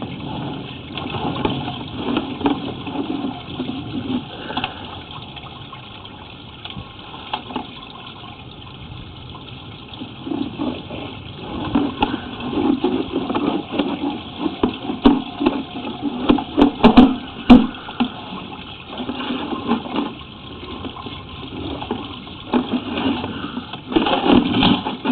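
Water rushing and gurgling through a 4-inch cast iron sewer line, with scattered knocks and scrapes from the inspection camera being pushed along the pipe. The knocks cluster after about ten seconds.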